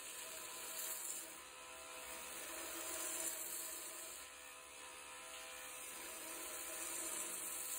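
Small belt grinder running with a steady motor hum while its abrasive belt sands and profiles a wooden kitchen-knife handle. The grinding noise swells each time the handle is pressed harder onto the belt.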